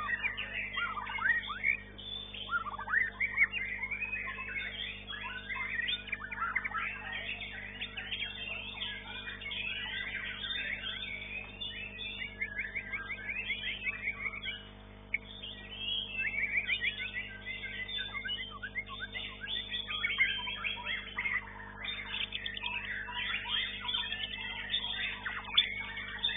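White-rumped shama (murai batu) singing a rapid, varied song of quick whistled and chattering notes, with a short pause about halfway through, over a steady low hum.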